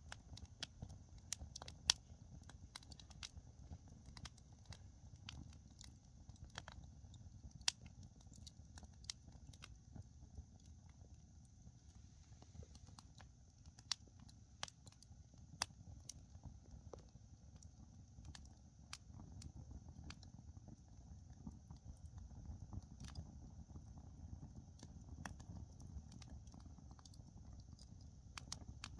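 Oak-wood campfire burning: irregular sharp crackles and pops of the burning wood over a low steady rumble.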